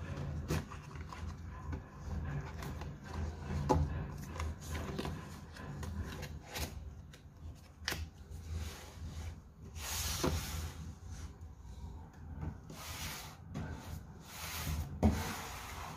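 Cardboard product box being handled: a tray pushed into it and the box closed, with rubbing and scattered light knocks, then a few longer sliding scrapes in the second half as boxes are moved on a tabletop.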